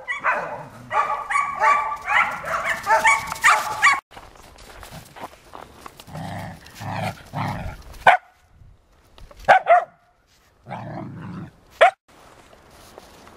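Samoyed puppies barking and yipping in play, in a dense run of calls for the first four seconds. After that it is quieter, broken by three short, sharp barks.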